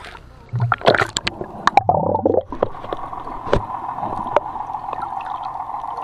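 Water splashing and gurgling as a handheld camera is plunged into the sea, then the muffled sound underwater: a steady hum with scattered clicks.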